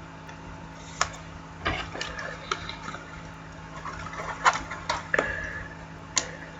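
Trading cards being handled: rustling with several short, sharp clicks and taps of cards and their plastic sleeves or cases.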